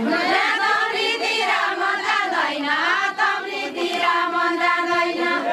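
A group of women singing a deuda folk song together, their voices sliding between long held notes.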